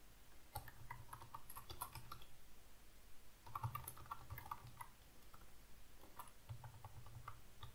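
Typing on a computer keyboard: quick runs of faint key clicks in three bursts, with short pauses between them.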